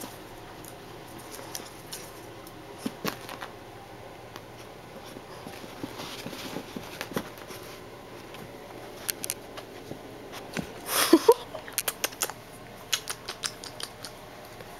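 Beagle puppies at play: scattered taps, scuffs and clicks, with a louder scuffle and a short rising squeak about eleven seconds in, followed by a quick run of clicks.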